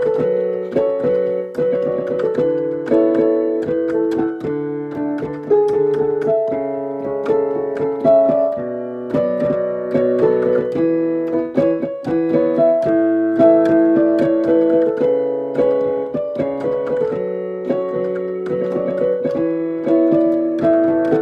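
Piano being played: a melody over held chords in the middle register, with new notes struck every fraction of a second.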